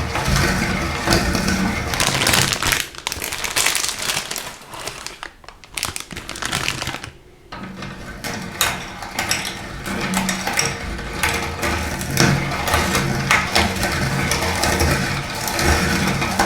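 Meat grinder crunching and crackling salty snack sticks, a dense run of sharp cracks over a steady machine hum. The crunching dies down for a few seconds midway, then picks up again.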